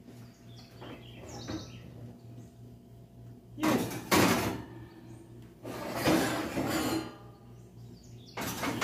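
Glass and ceramic baking dishes clattering against metal oven racks as they are slid into an open oven, in a few bursts a couple of seconds apart.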